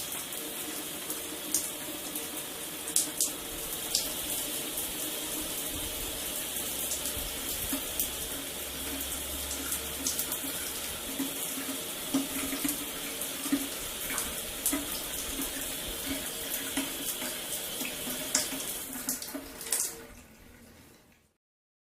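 Shower running: a steady spray of water with scattered sharp splashes, shut off about 19 seconds in and trailing away.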